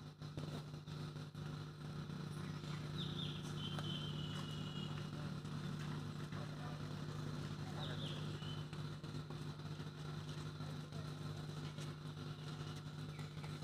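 A steady low mechanical hum, like an engine or generator running, with a few short high chirps about 3, 8 and 13 seconds in.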